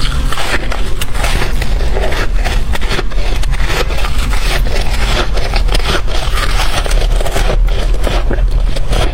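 Close-miked crunching of shaved ice and freezer frost being chewed, a dense run of crackles and crisp snaps with no pause.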